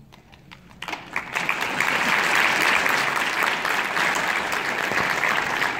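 Audience applauding, starting about a second in and quickly swelling into steady clapping.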